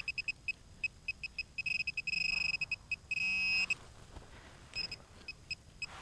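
XP MI-4 metal-detecting pinpointer beeping in short, irregular high-pitched bleeps as it is probed through loose soil, running into a continuous tone about two seconds in as it sits right on a buried coin. A brief, buzzier tone follows just after three seconds, then the beeps resume sparsely.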